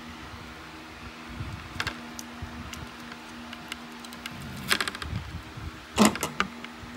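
Plastic roof trim piece being handled: scattered clicks and taps, with a cluster of sharper clacks about two thirds of the way through and the loudest one near the end, over a steady low hum.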